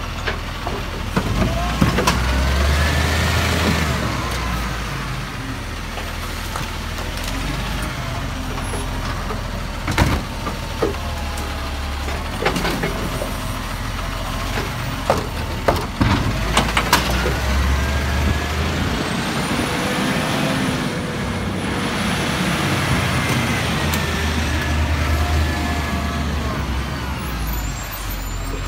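Side-loading garbage truck's diesel engine running, with a whine that rises and falls twice as its hydraulic arm lifts and lowers wheelie bins. Several sharp clanks from the bins and the arm come in the middle.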